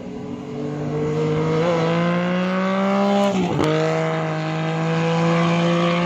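Vehicle engine accelerating, its pitch climbing steadily, then dropping sharply at a gear change about three and a half seconds in before climbing again.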